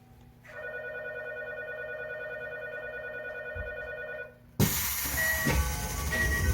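Door-closing warning tone inside a Tokyo Metro 8000 series car: a steady electronic tone with a wavering low part for about four seconds. Then the sliding doors slam shut with a sudden loud bang.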